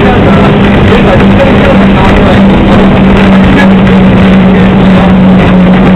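Botchan Ressha replica locomotive's diesel engine droning with a steady low hum, mixed with the running noise of the train, heard loud from inside the carriage.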